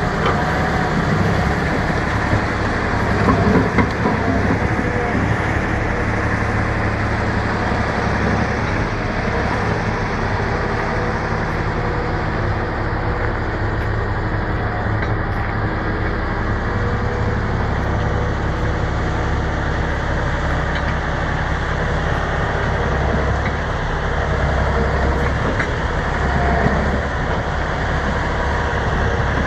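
Bulldozer's diesel engine running steadily, with a brief louder surge about three seconds in.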